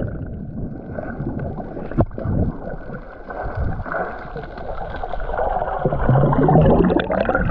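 Muffled underwater sound of sea water sloshing and bubbling around a camera held under the surface, with a sharp click about two seconds in. Near the end it grows louder, with a rush of bubbles and a low, slightly rising hum.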